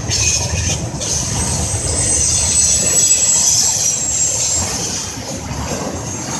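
Intermodal freight train's trailer-loaded flatcars rolling past, a steady low rumble of wheels on rail with a high, thin wheel squeal held over it.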